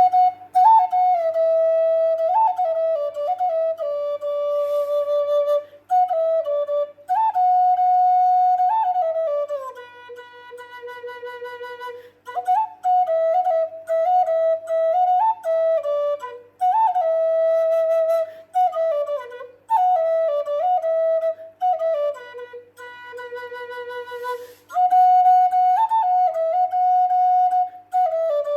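Solo flute playing a happy, playful melody: a single line of held notes and quick turns, in phrases with short breaths between them.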